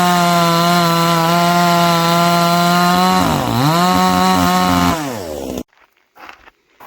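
Supmix 60 cc two-stroke gas chainsaw running at high revs. About three seconds in the engine note dips sharply and climbs back, then the revs fall away and the sound stops abruptly near the end.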